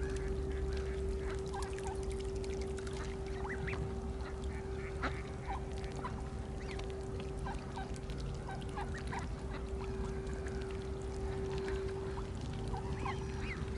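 Short, scattered calls of mallards, a hen and her ducklings, some calls rising in pitch, over a steady low hum.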